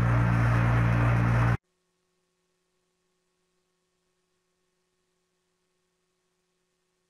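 A loud steady low hum with hiss cuts off suddenly about a second and a half in, leaving near silence with only a faint electrical hum.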